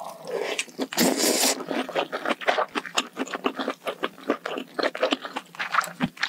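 Close-miked eating of spicy malatang hot pot: a mouthful is taken in with a short noisy slurp about a second in, then chewed with many small, irregular wet clicks and crunches.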